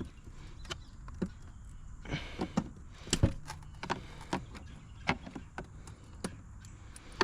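Scattered clicks and knocks, about a dozen at irregular spacing, from hand tools working at the fasteners of a BMW's interior door handle.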